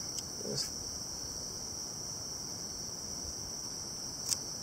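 Steady, high-pitched drone of a chorus of insects such as crickets or cicadas, unbroken throughout, with a couple of faint clicks.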